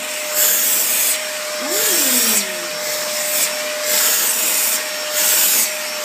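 Vacuum cleaner running with a steady motor whine over loud suction hiss. The hiss surges and eases about once a second as the nozzle is drawn over the cat's fur.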